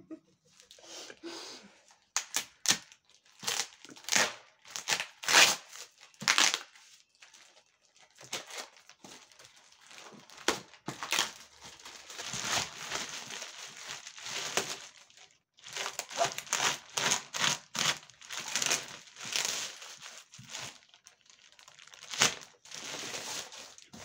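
Plastic parcel wrapping and tape crinkling and tearing in irregular bursts as they are slit and pulled open off a cardboard box.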